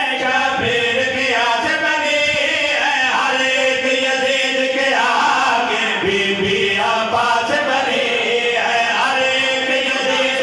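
Men's voices chanting a devotional recitation together, a lead reciter with a backing chorus of men, amplified over microphones.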